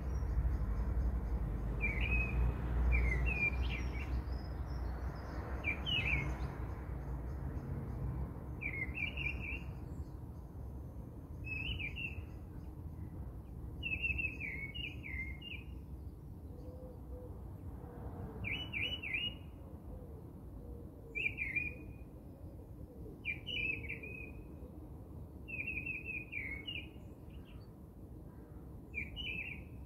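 A songbird chirping short, repeated phrases about every one to two seconds, over a low background rumble.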